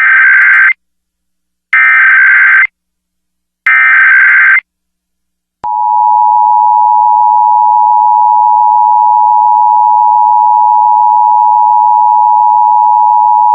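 Emergency Alert System broadcast tones. First come three bursts of the digital SAME header data, each about a second long with short pauses between. About five and a half seconds in, after a second of silence, the steady two-tone EAS attention signal starts, marking the start of an alert.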